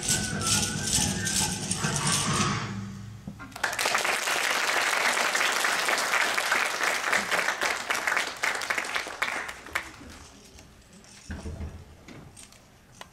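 Yosakoi dance music with an evenly clacking beat stops about two and a half seconds in. After a short pause an audience applauds for about six seconds, and the clapping then dies away.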